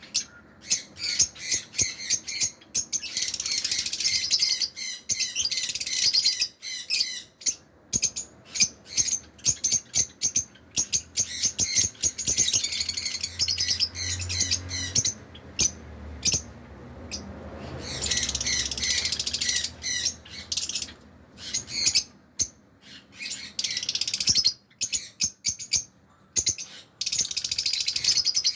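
Caged parrots and lovebirds chattering, with runs of rapid, shrill chirps that stop and start again every few seconds. A faint low rumble comes in about halfway through.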